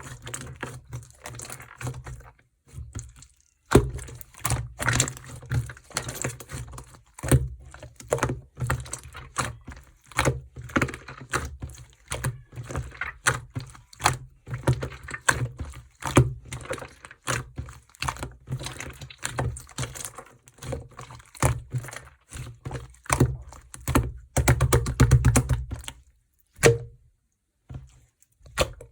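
Clear, chewy jelly-textured slime being pressed and squished by hand: an irregular run of sticky clicks, pops and soft thuds that goes mostly quiet near the end.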